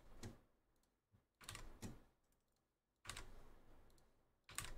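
Faint clicking of a computer keyboard and mouse, in about four short clusters spread over a few seconds.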